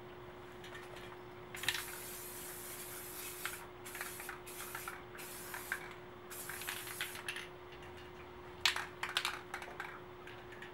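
Aerosol can of Rust-Oleum matte clear coat spraying in several hissing bursts of a second or so each, one after another over about six seconds, followed by a few short clicks near the end.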